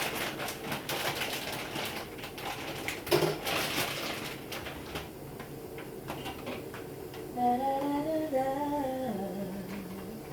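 Vegetables being handled in a basin of soaking water, a rustling, splashing sound with light clatters, for about five seconds. From about seven seconds in, a voice hums a slow tune.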